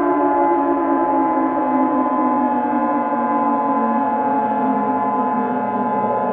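Sustained electronic alert drone: a steady high two-note tone over a dense bed of ringing, gong-like tones, the lower ones slowly falling in pitch.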